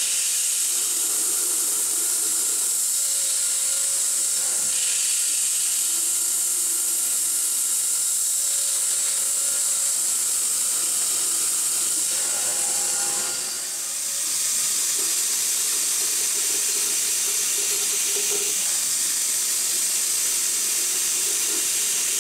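Steady loud hiss of an air blast nozzle aimed at the cut while a CNC mill turns a part held in its spindle against a fixed lathe tool. Faint machine tones from the spindle and the cut sit underneath, and the hiss dips briefly a little past halfway.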